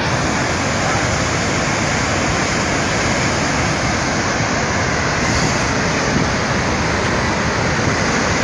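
Steady rushing noise of a debris flow, mud and rocks pouring down the valley after a cloudburst.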